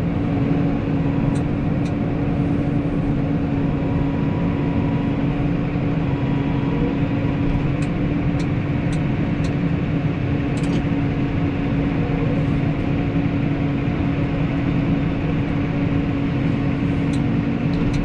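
Loader tractor engine running steadily from inside the cab, with a constant droning hum, as the tractor drives forward pushing snow with its front bucket.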